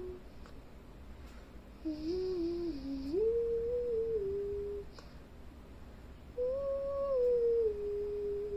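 A person humming a slow tune with closed lips, in long held notes that step up and down in pitch, with a pause of about a second or two between phrases.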